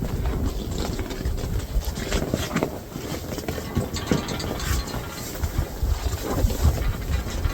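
Gusty wind buffeting the microphone as an uneven low rumble, with irregular crunching steps through snow.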